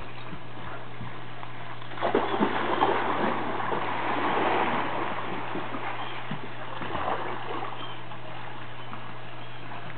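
Pool water splashing: a loud burst of splashes about two seconds in as a man and a chocolate Labrador puppy go into a swimming pool, then churning water that slowly fades as the puppy paddles across.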